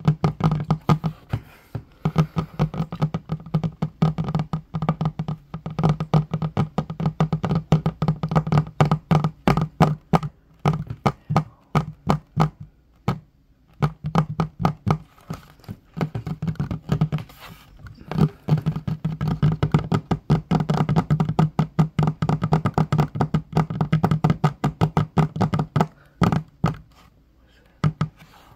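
Fingertips and fingernails tapping rapidly on a wooden table top: a dense run of small knocks over a low resonant tone. The tapping pauses briefly about 13 seconds in and thins out near the end.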